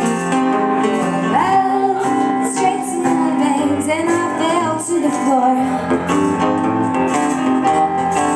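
A live acoustic duo playing a song: a woman singing over a digital piano, with an acoustic guitar played alongside.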